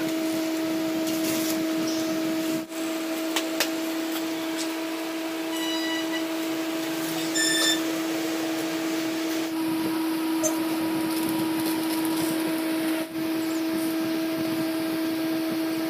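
A steady hum at one unchanging pitch, like a small electric motor running, with a few light clicks and clinks of metal engine parts being handled early on and two brief metallic pings midway.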